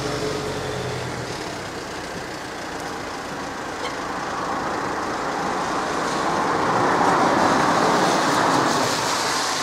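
Car traffic on a wet road: tyres hissing on the wet asphalt with some engine noise, the hiss swelling louder in the second half.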